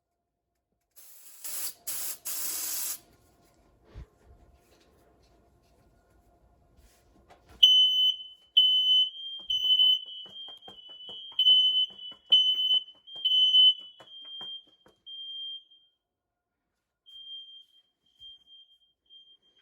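Three short hisses of a CRC Smoke test aerosol smoke-alarm tester being sprayed. About five seconds later a smoke alarm goes into alarm with a loud, shrill beeping about once a second, which turns fainter and broken near the end.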